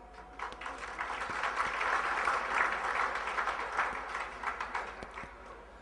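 Lecture audience applauding: a round of clapping that swells, then dies away near the end.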